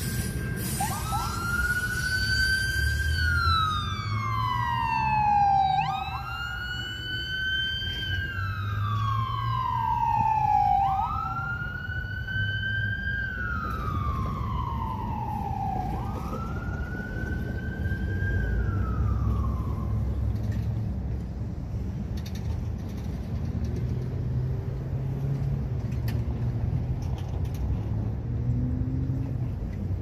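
Ambulance siren in wail mode: four slow cycles, each rising quickly and then falling away over several seconds, fading out about two-thirds of the way through. A low rumble runs under it throughout.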